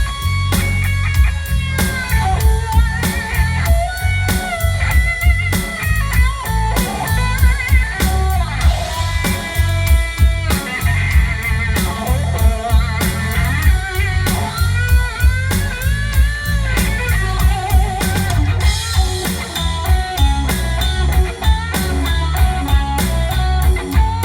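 Live band playing an instrumental break: a lead guitar solo with bent, wavering notes over a steady drum beat and bass.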